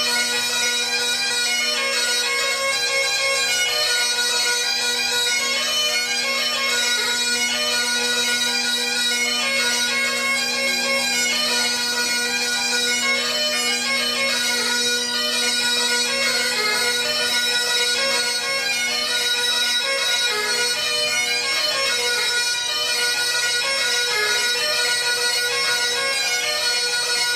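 Great Highland bagpipes playing a tune: the chanter's melody runs over a steady, unbroken drone.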